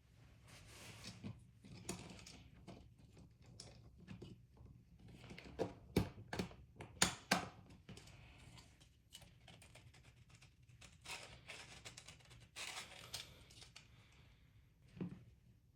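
Hands handling and fitting 3D-printed plastic pistol parts: scattered light clicks and short scraping rustles, with a few sharper clicks about halfway through.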